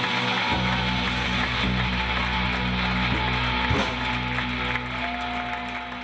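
A live rock band of electric guitar, bass guitar and drum kit plays a held closing chord with a cymbal crash partway through. The sound is dying away near the end as the song finishes.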